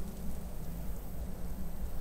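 A steady, low, rumbling background noise with no distinct events, an added nature ambience bed.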